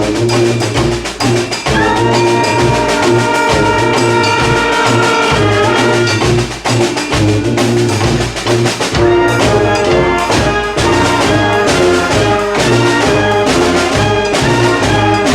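A brass band of trumpets and trombones with drums playing a loud, rhythmic tune. Long held notes come a couple of seconds in, then short punchy accented hits through the second half.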